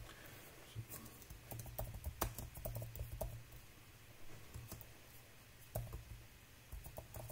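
Typing on a computer keyboard: irregular keystroke clicks in two spells, the first beginning about a second and a half in, with a pause in the middle.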